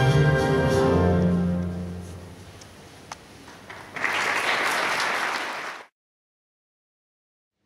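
Dance music ends on a held final chord that dies away over the first two seconds. After a short lull, the audience applauds about four seconds in, and the applause cuts off abruptly just before six seconds, leaving dead silence.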